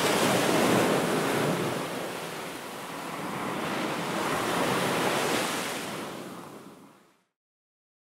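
Waves washing in: a noisy rush of surf that swells twice and fades out near the end.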